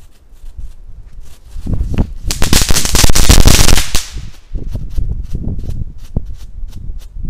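Small category 1 consumer firework crackling on the ground. Scattered pops build into a dense, loud crackle for about two seconds, then thin out to single pops.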